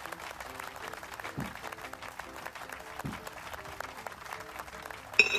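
Clapping applause over light background music, with a short bright ringing tone near the end.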